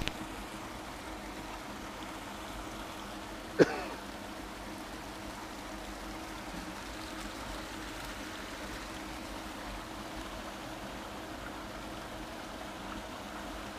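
Steady trickling, flowing water with a faint steady hum beneath it. One short, sharp sound cuts through about three and a half seconds in.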